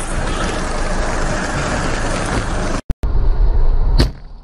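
Steady wind and vehicle noise of a motorcycle ride on a helmet camera. After a brief drop-out about three seconds in, road noise inside a car, with one sharp click near the end.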